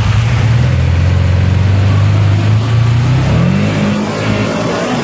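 Can-Am Maverick side-by-side engine pulling steadily, then revving up sharply about three and a half seconds in as the machine climbs a small waterfall ledge in a creek.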